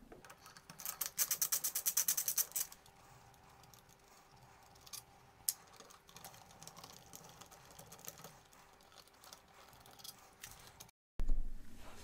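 Ratcheting screwdriver backing out a light switch's faceplate screws: a quick run of ratchet clicks about a second in, lasting about two seconds, then a few faint scattered clicks. A short thump near the end.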